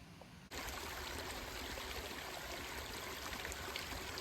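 Running water of a mountain stream: a steady rushing and trickling that starts abruptly about half a second in.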